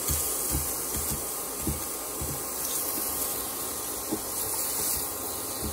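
Sliced onions sizzling in hot olive oil in a stainless steel frying pan, a steady hiss, with scattered soft knocks as metal tongs turn them in the pan.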